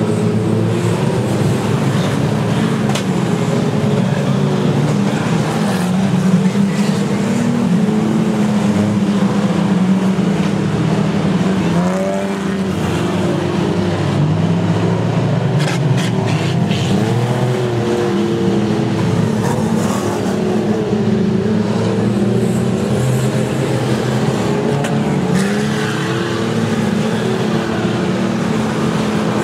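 A pack of speedway stock cars racing, several engines running loud together, their pitches rising and falling as the cars accelerate and back off. A few sharp knocks about halfway through.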